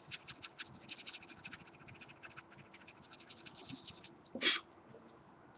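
Keys on a computer keyboard being typed in quick, irregular clicks as a code is entered, with one louder knock about four and a half seconds in.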